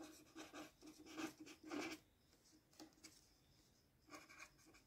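Pen writing on paper: faint strokes in short spurts during the first two seconds, a pause, then a few more strokes near the end.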